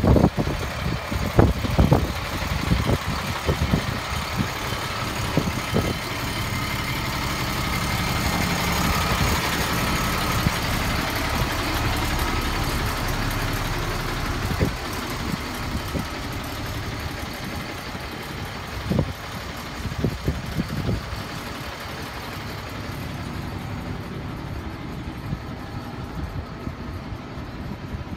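DAF LF lorry's diesel engine idling steadily, a little louder through the middle, with a few short knocks from handling over it.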